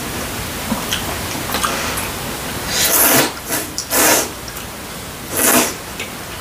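Knife-cut kalguksu noodles being slurped into the mouth: three loud slurps in the second half, the first and longest about three seconds in, then two shorter ones. Faint light clicks come in between.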